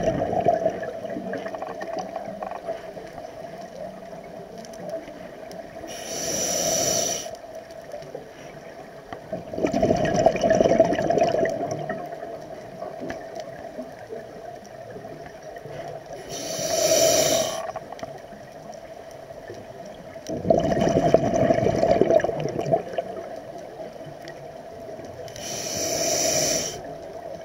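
Scuba breathing through a regulator, heard underwater: a short hiss of inhalation about every ten seconds, each followed a few seconds later by a longer gurgling rush of exhaled bubbles.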